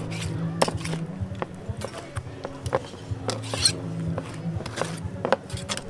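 Kitchen utensils clinking and knocking irregularly during food preparation, over a low steady hum.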